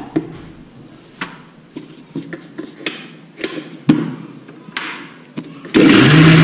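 Electric mixer grinder grinding a wet masala paste of coconut, coriander and fennel with water. A few knocks and clinks come first as the jar is handled, then near the end the motor starts with a loud whirring whine that rises in pitch as it spins up.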